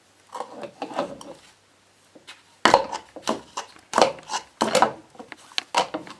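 Irregular knocking and clattering of something hard struck against a hard, wood-like surface: a few knocks in the first second or so, a short pause, then a denser run of knocks, several a second, from about two and a half seconds in.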